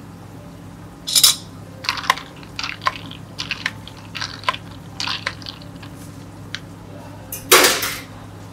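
Long bar spoon stirring ice in a plastic cup of iced coffee and milk: a string of ice clinks and rattles, with a sharp rustle about a second in and a longer rustle near the end. A steady low hum runs underneath.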